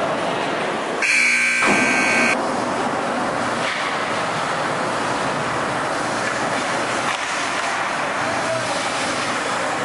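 An ice rink's horn sounds once, for about a second and a half, about a second in, over the steady noise of a hockey game in the arena.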